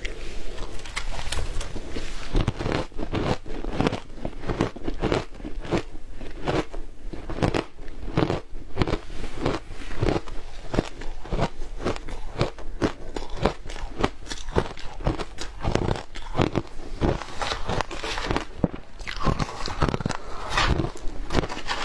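Crunchy frozen shaved ice being bitten and chewed, a fast run of crisp crunches, several a second. Near the end a metal spoon scrapes and digs into the ice in its plastic tub.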